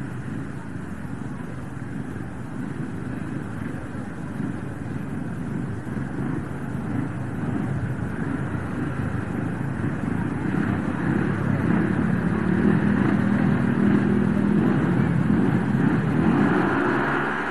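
Several speedway motorcycles' single-cylinder engines running at the start gate, revved harder and louder from about two-thirds of the way in as the riders wait for the tapes to go up.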